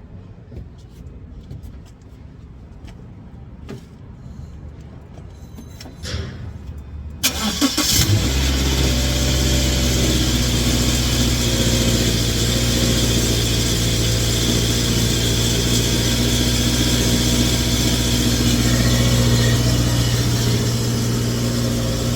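Subaru Legacy's boxer engine cranked and started about seven seconds in, after a few faint clicks, then idling steadily through its newly replaced exhaust mid-pipe and muffler.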